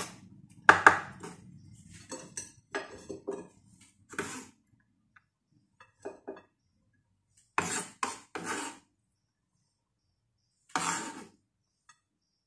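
Chef's knife knocking and scraping on a wooden chopping board as minced ginger is chopped and cleared off. The strokes come singly or in short clusters with pauses between, the loudest about a second in.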